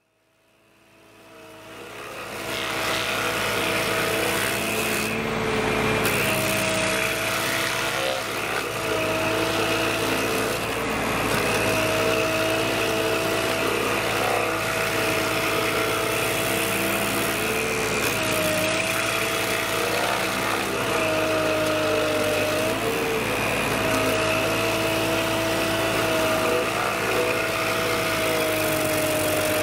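Baumalight Stump Blaster 3P24, a tractor PTO-driven stump grinder, grinding a stump. A steady machine whine sags in pitch every few seconds as the cutting wheel bites into the wood. The sound fades in over the first two seconds.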